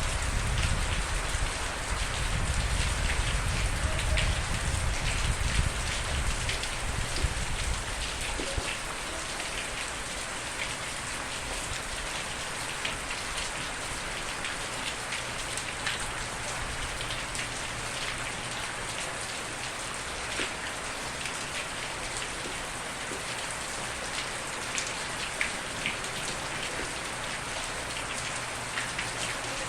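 Steady rain falling, with many close single drops striking sharply through the hiss. A low rumble underlies the first several seconds and then fades away.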